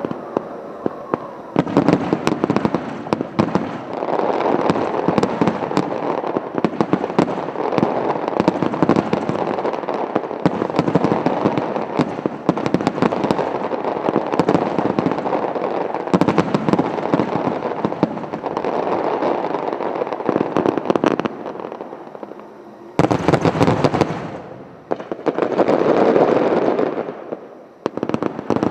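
A dense fireworks barrage: shells bursting and crackling in rapid, overlapping succession for about twenty seconds, then after a short dip two more loud swells of bursts near the end.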